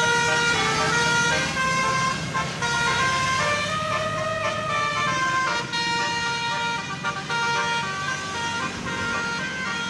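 Bus telolet horn of the Basuri type, a set of multi-tone horns, playing a melody: held notes that step from pitch to pitch, several tones sounding together.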